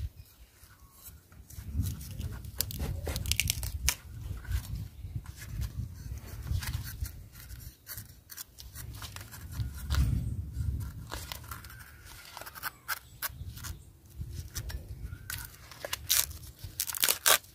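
A knife cutting and peeling the tough outer sheaths off a fresh young bamboo shoot: scattered crisp clicks, cracks and tearing as the husk is split and pulled away. A low rumble comes and goes underneath.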